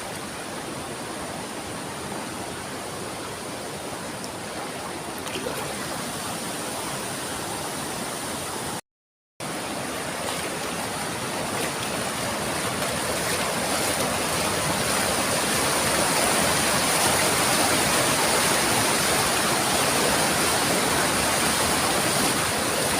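Steady rush of water from a small waterfall and the river below it. It cuts out for about half a second around nine seconds in, then comes back a little louder.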